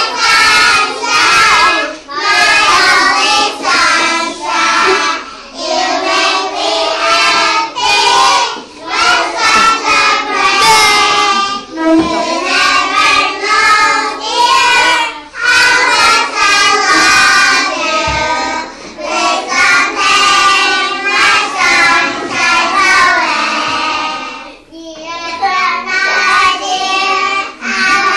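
A group of young children singing a song together, phrase after phrase with short breaks between lines.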